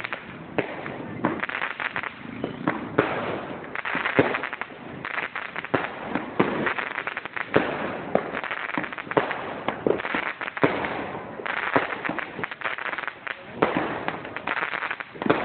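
Fireworks going off one after another: many sharp bangs and pops over continuous crackling from bursting aerial shells.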